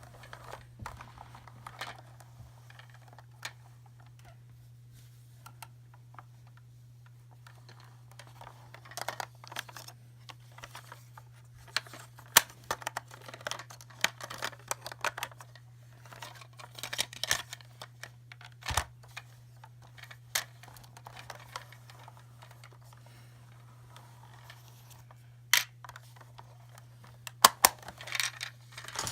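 Scattered clicks, taps and crinkles of small plastic toys and their packaging being handled, over a steady low hum.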